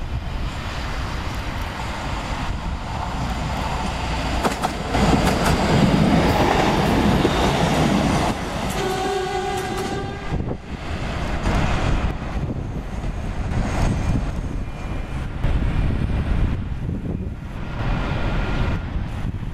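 Vintage NZR Standard railcar RM31 running past at close range, its rumble peaking about five to eight seconds in. A single horn blast of about a second and a half follows just before ten seconds, then the railcar is heard running on as it moves away.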